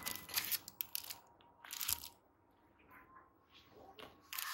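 Clear plastic menu sleeve crinkling as the menu is pulled from its holder and handled, in a few short rustles, with a louder one near the end.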